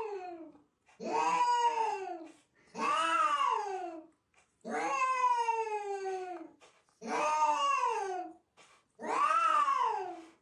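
A cat giving long, drawn-out meows one after another, about one every two seconds, each rising then falling in pitch.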